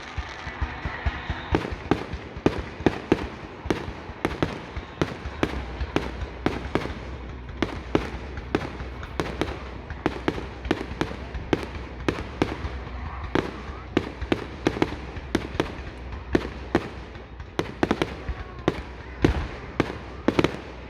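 Fireworks going off: a dense, irregular series of sharp bangs and cracks, several a second, over a steady low rumble.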